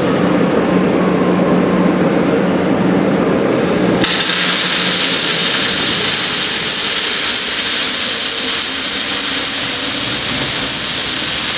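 Robotic arc welding on a freight-car cross bearer: a low steady machine hum while the robot brings the torch into position, then about 4 s in the welding arc strikes and runs as a steady, dense, hissing crackle.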